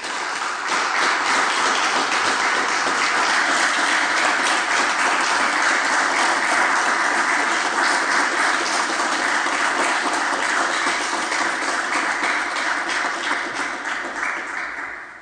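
Sustained applause from many hands clapping at an even level, dying away near the end.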